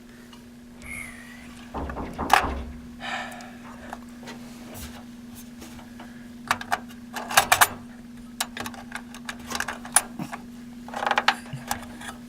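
Clicks, taps and clatter of computer parts being handled and fitted into place, over a steady low hum. The sharpest knocks come about two seconds in, around seven seconds, and in a quick run of clicks near the end.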